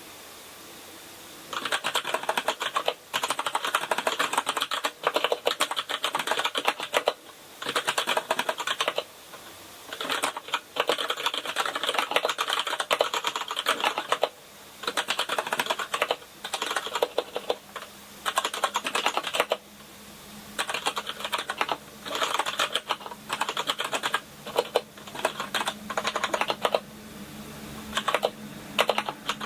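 Typing on a Kinesis Advantage contoured keyboard with Cherry MX Brown tactile switches. Rapid key clicks come in runs of a few seconds with short pauses between, starting about a second and a half in.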